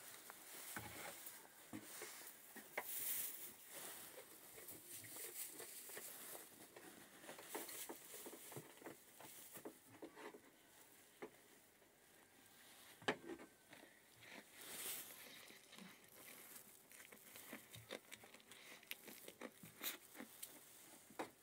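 Faint rustling of hay with scattered light clicks and knocks as goats move about and feed in a wooden pen, with one sharper knock a little past halfway.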